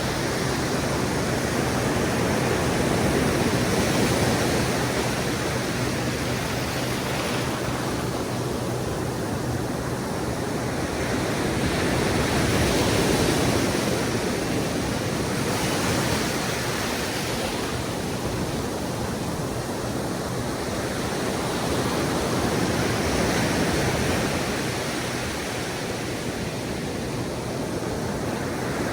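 Ocean surf washing onto a sandy beach: a steady rush of waves that swells louder and eases off every several seconds.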